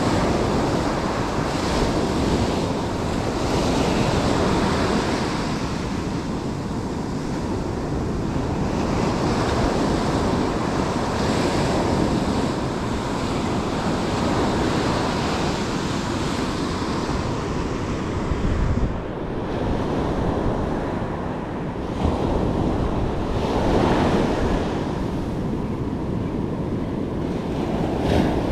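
Ocean surf breaking and washing up a sandy beach, rising and falling in swells every few seconds, with wind noise on the microphone.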